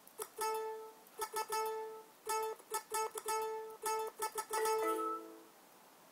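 A run of steady electronic beeps, short and long, all at one pitch with clicks between them, the last one dropping to a lower pitch about five seconds in.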